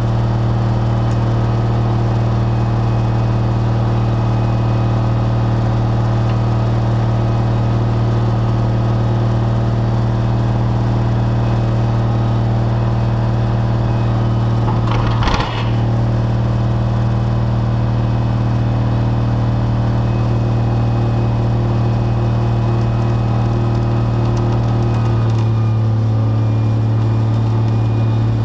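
Heavy tow truck's diesel engine running steadily to power its winch, a loud constant drone. A single sharp clunk about halfway through, and the engine note changes slightly near the end as the winch pulls the stuck semi tractor.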